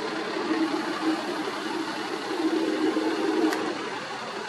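Air-ambulance helicopter in flight, its turbine and rotor making a steady drone with a wavering hum. A short click about three and a half seconds in.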